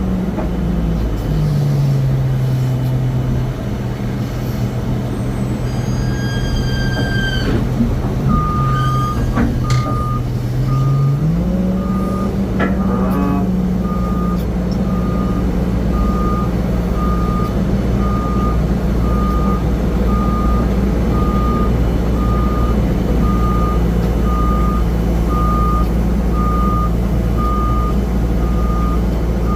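Vehicle reversing alarm beeping steadily about once a second, starting about eight seconds in, over a steady low engine rumble that drops in pitch early on and rises back partway through. A brief high whine falls away just before the beeping begins.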